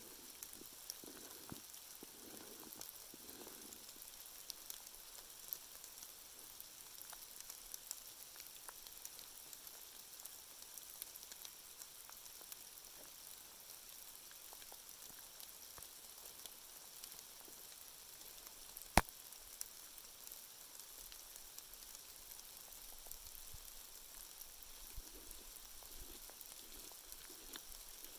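Steady fine crackling patter of rain, with a knife blade scraping wood into tinder shavings near the start and again near the end, and one sharp click about two-thirds of the way through.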